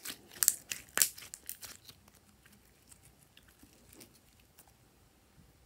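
Slime being squished by hand: a quick run of sharp crackling pops and clicks in the first two seconds, then only scattered faint clicks.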